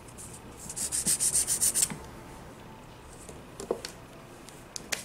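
A nail file rubbed quickly back and forth on a gel-polished fingernail: a run of about ten short, hissy strokes lasting about a second. A few light clicks follow.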